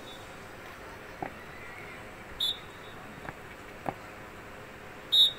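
Two short, sharp blasts on a high-pitched whistle, a little under three seconds apart. They are a drill whistle timing a dog-and-handler display.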